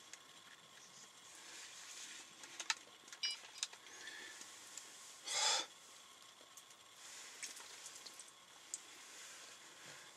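Faint steady hiss with scattered clicks and small handling noises, a brief squeak a little after three seconds, and one short louder rushing burst just past halfway.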